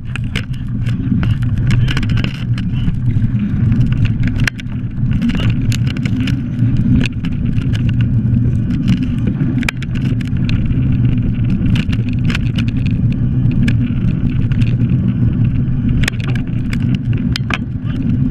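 Bike tyre rolling fast over a gravel track: a steady low rumble with frequent sharp clicks and rattles of grit and the bike.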